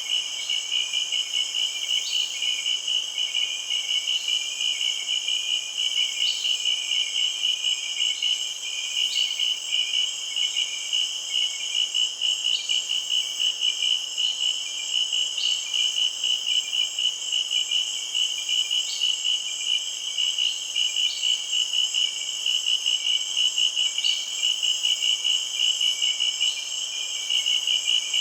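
Insects chirping in a steady night-time chorus: fast, even pulsing chirps with a continuous high buzz above them, unchanging throughout.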